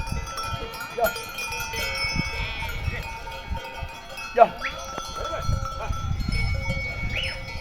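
A flock of sheep bleating, with livestock bells clanking and ringing among them.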